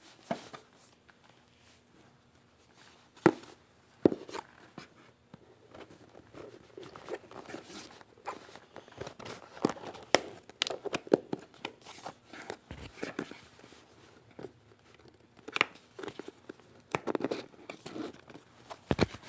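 Tape being cut and pulled off a cardboard box, with the box and packaging handled: scattered clicks, crunches and rustling after a few near-silent seconds.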